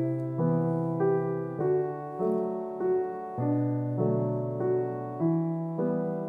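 Background piano music: a gentle melody of single notes struck at a steady, unhurried pace, a little under two a second.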